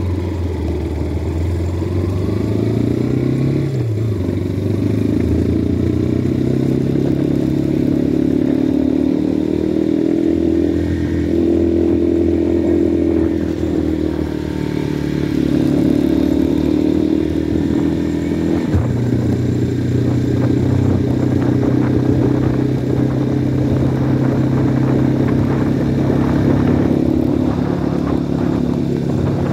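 Motorcycle engine running under way, heard from on the bike. Its pitch climbs over the first few seconds, drops about four seconds in, shifts again with a click a bit past the middle, then holds steady.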